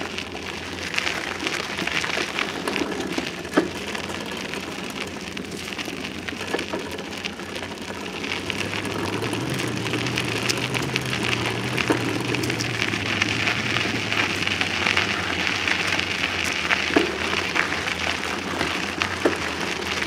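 Bicycle tyres rolling over a dirt trail, picked up by a camera zip-tied to the bike: a steady crackling rattle with scattered knocks from bumps.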